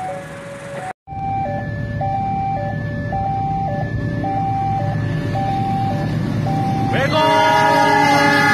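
Level-crossing warning bell sounding an alternating two-tone alarm, switching tones about twice a second, which signals that a train is approaching. About seven seconds in, the KAI diesel locomotive sounds a long horn of several tones at once, a warning to a motorcyclist crossing just ahead of it.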